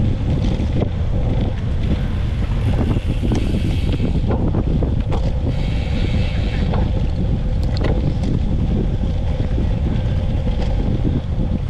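Wind buffeting the microphone: a loud, steady low rumble, with scattered faint clicks and a faint steady hum.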